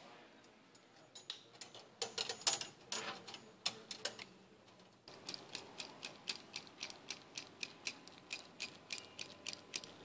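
Metal hand tools clicking as a 3/16-inch mild steel brake line is cut and flared. A few sharper, louder clicks come in the first half, then a steady run of light ticks, about four a second.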